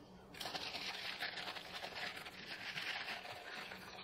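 Acetone-dampened paper coffee filter scrubbed around the inside of a stainless steel bowl: a steady rustling, rubbing noise that starts about a third of a second in.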